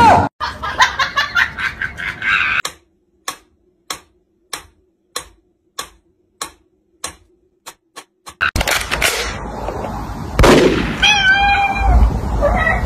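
Mechanical pendulum metronome ticking: sharp, evenly spaced clicks about every 0.6 seconds over near silence, for several seconds in the middle. Noisier sound surrounds it, with a short wavering cry near the end.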